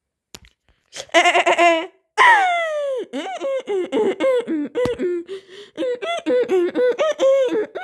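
A young child laughing: a quick high giggle, a falling squeal, then a long run of rhythmic laughs.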